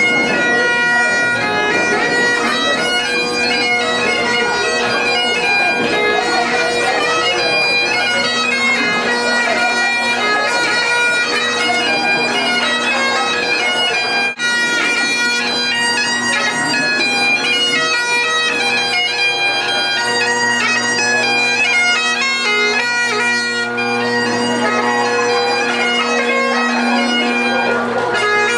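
Bagpipes playing a melody over steady drones, with a momentary break about halfway through.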